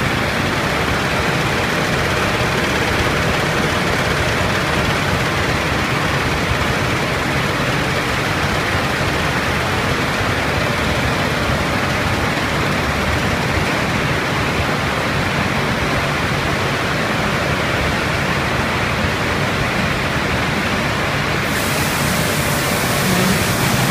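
Steady, loud din of a roasted-peanut processing line: conveyor belts and their gear motors running, with peanuts spilling off a belt. A higher hiss joins near the end.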